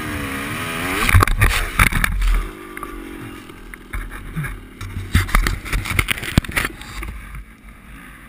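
Dirt bike engine revving up and down, then a crash: a run of knocks and thumps with buffeting on a helmet-mounted microphone as bike and rider go down in sand. The engine keeps running with a steadier note while the bike lies on its side, with more knocks after it.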